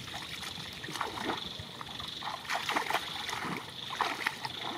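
Shallow muddy paddy water sloshing and splashing as a person wades barefoot and gropes with his hands in the mud, in several short, irregular splashes.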